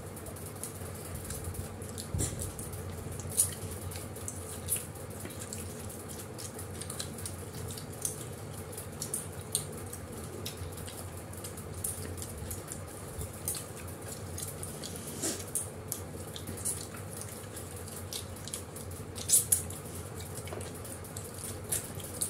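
People eating roti and chicken curry by hand: wet chewing and mouth smacks, with a few sharper clicks, over a steady low hum.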